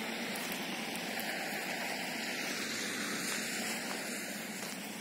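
Steady hiss of rain, with a few faint scattered ticks of drops.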